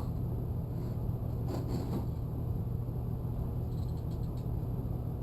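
A steady low hum runs throughout, with a few faint brief ticks about a second and a half in and again about four seconds in.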